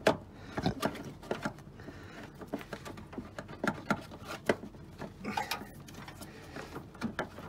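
Hands working a rubber windscreen-washer hose into place behind a car's wheel-arch liner: irregular small clicks, taps and rustles.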